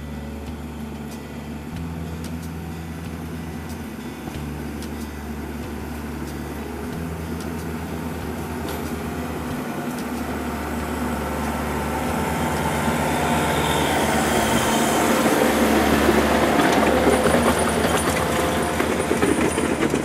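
Kubota MX5100 compact tractor's diesel engine running steadily under load while pulling a land plane, with the crunch and scrape of gravel being dragged and levelled growing louder in the second half as it comes closer.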